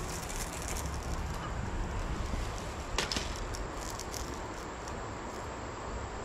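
Steady rush of flowing creek water, with a faint steady high insect drone above it and one short sharp sound about three seconds in.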